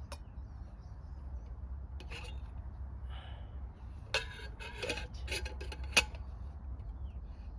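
Camp cooking gear being handled: scattered clicks, then a run of scraping and clattering ending in a sharp knock about six seconds in.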